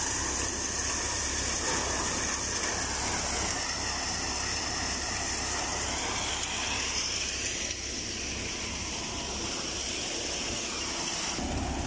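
Tractor-driven threshing machine running steadily while threshing sesame: a constant rushing hiss from the machine over the low hum of the Fiat 480's diesel engine.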